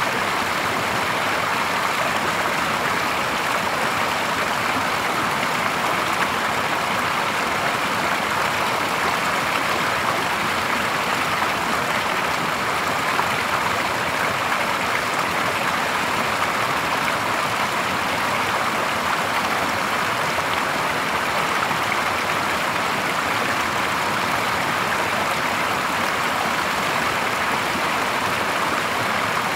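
Small clear stream spilling over a low weir into a shallow pool: a steady splashing rush of falling water.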